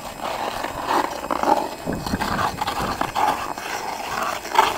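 Ice skate blades scraping and cutting across rough outdoor rink ice in uneven strokes.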